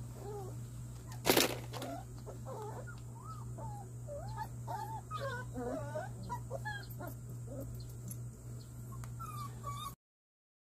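Month-old Jindo–pit bull mix puppies whimpering and squealing in short, wavering high cries as they play-wrestle, with one sharp knock about a second in. A low steady hum runs underneath, and everything cuts off suddenly near the end.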